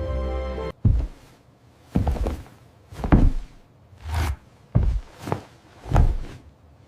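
Slow, heavy footsteps, about one step a second, after a stretch of music that cuts off abruptly under a second in.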